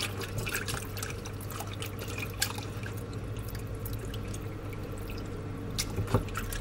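Water sloshing and splashing in a plastic bowl as hands rub and squeeze raw chicken pieces in rinse water, with many small irregular splashes and drips and a few louder splashes near the end.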